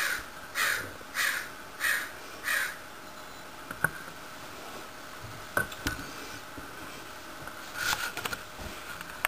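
American crow cawing, a run of five caws about two-thirds of a second apart, followed by a few sharp clicks.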